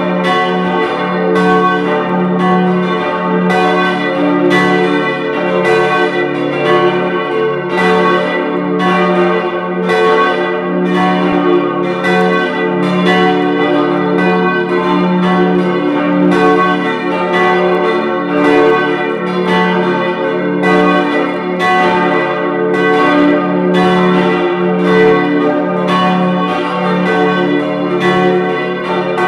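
Full peal of four church bells tuned d', f-sharp', a' and b', all ringing together: strokes follow one another without pause over a continuous ringing hum.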